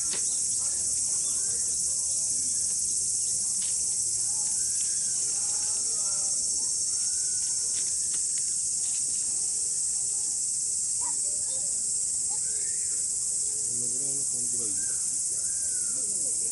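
Steady chorus of crickets: a dense, unbroken high-pitched trilling, the loudest sound.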